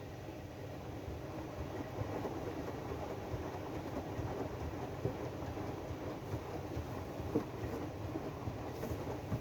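AEG DualSense washing machine running its drum-clean cycle: a steady low rumble of the turning drum and water, with a few sharp knocks about five and seven seconds in and near the end.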